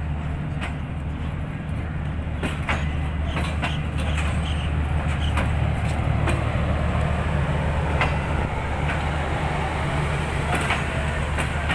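Passenger train coaches rolling past at low speed: a steady low rumble with short, irregular clicks and knocks from the wheels on the track.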